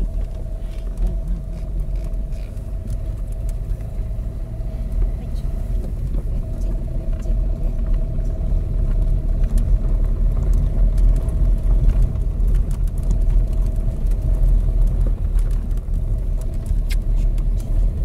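Car driving on a gravel dirt track, heard from inside the cabin: a steady low rumble of engine and tyres with a steady whine over it, and scattered light ticks of gravel under the tyres. It grows a little louder after several seconds.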